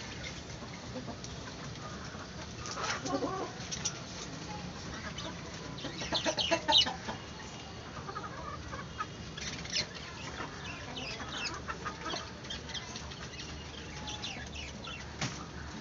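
Chickens clucking in short, scattered calls, loudest about six to seven seconds in and again in a run a little later, over a steady background hiss.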